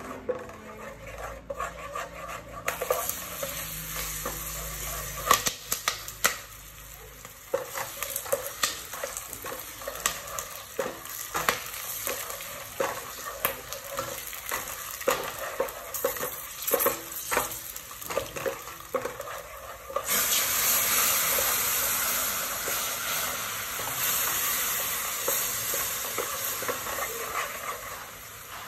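A wooden spatula scrapes and knocks against a metal pot while a mixture sizzles in it. About twenty seconds in, a louder, steady sizzle starts suddenly, then slowly eases.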